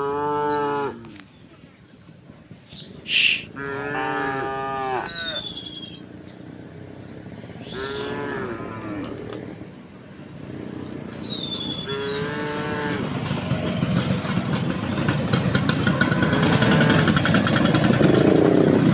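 Cows mooing, four calls of about a second each, with small birds chirping high above them. A short sharp noise about three seconds in is the loudest thing, and from about two-thirds of the way in an engine grows steadily louder.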